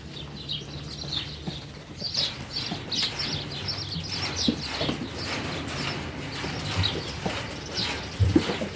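Barn ambience: small birds chirping in quick repeated bursts over a steady low hum, with scattered short knocks.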